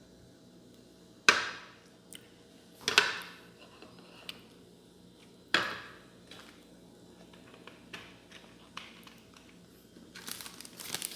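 Kitchen handling sounds: three sharp knocks a second or two apart, with lighter clicks between. Near the end a seasoning packet is crinkled.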